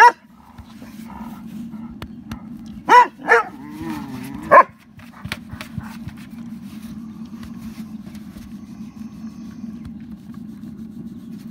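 Dogs barking while they play: a bark at the start, two quick barks about three seconds in, then a drawn-out wavering call and another bark. The second half has no barking, only a steady low rumble.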